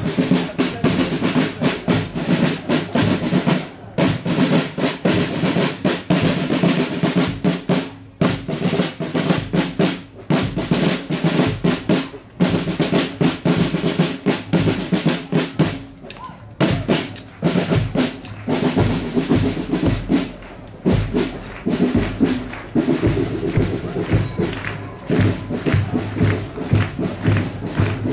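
Marching drum corps playing a snare-drum cadence, with a brief break about every four seconds.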